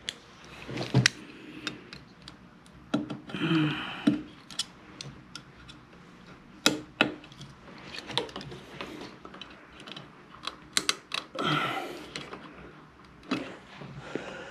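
Irregular small clicks and taps of a plastic trim part being handled and fitted against a metal shower valve trim plate, with a couple of brief rustles.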